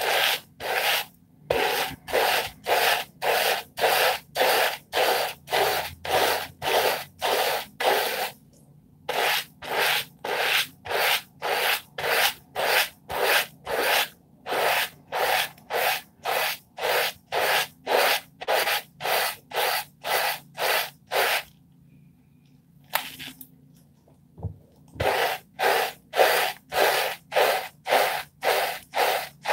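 Hair brush bristles stroking through shampoo-lathered short wavy hair, a quick swishing rub about two strokes a second. The strokes stop briefly about eight seconds in and for a few seconds past the middle, then start again. The sound is of a wave brush worked through lather in the wash-and-style method.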